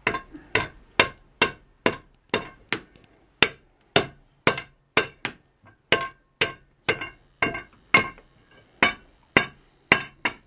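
Hand hammer striking red-hot iron on a small anvil in a steady rhythm, about two blows a second, each with a short metallic ring.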